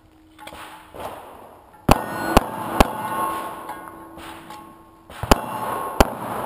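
Five handgun shots, each echoing off the range: three in quick succession about two seconds in, then two more a little over a second apart near the end.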